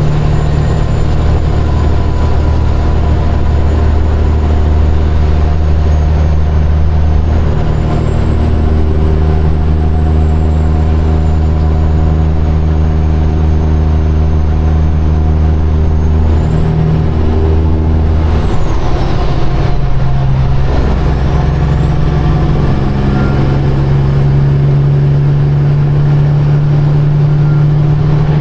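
Caterpillar diesel of a Peterbilt semi truck running steadily at highway speed, heard inside the cab, with a faint high whine over the engine note. About two-thirds of the way through, the engine note and the whine drop away briefly, then rise again.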